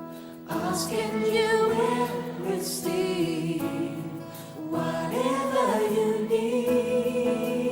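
Gospel choir singing with instrumental backing, with sustained chords and voices holding long notes. It dips briefly about half a second in, and a long held note starts about five seconds in.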